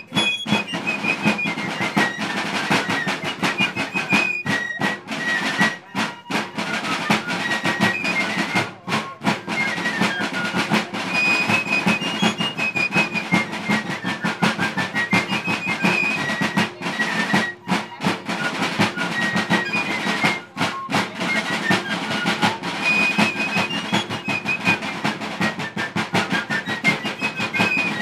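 Fife and drum corps playing a march: fifes carry a high, shrill melody over rapid rope-tension snare drumming and a rope-tension bass drum.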